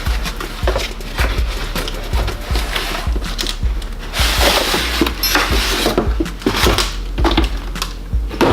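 A statue being pulled out of its box and packaging: irregular rustling, scraping and knocking of the packing, with a longer rasping slide about halfway through.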